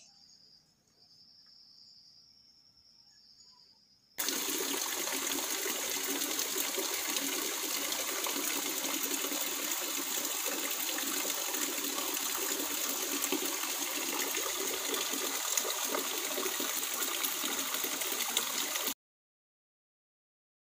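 Steady rain falling close by, a loud even hiss of water that starts suddenly about four seconds in and cuts off abruptly near the end. Before it, faint crickets chirping.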